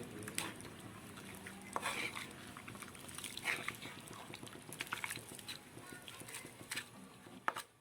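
A spoon stirring chicken curry in a cooking pot after water has been added, with scattered scrapes and light clinks against the pot.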